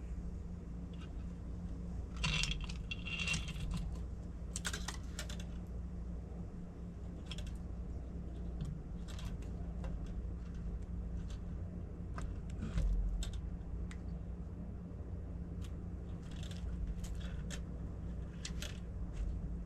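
Light metallic clicks and clinks of small engine parts and tools being handled during a dirt-bike top-end rebuild, irregular and scattered, with a cluster a couple of seconds in, over a steady low hum.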